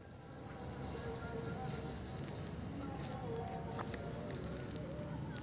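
Crickets chirping in an even, high-pitched pulse of about four to five chirps a second, over a steady higher-pitched insect drone.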